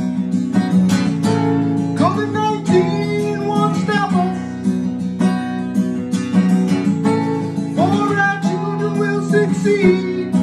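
Steel-string acoustic guitar strummed steadily in a song accompaniment, with a man singing over it at times.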